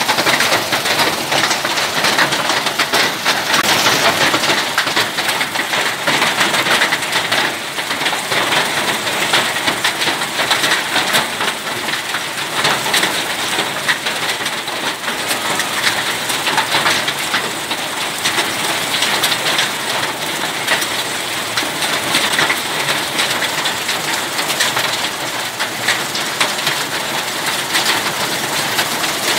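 Small hailstones pelting wet ground: a dense, steady clatter of countless tiny ticks, like heavy rain.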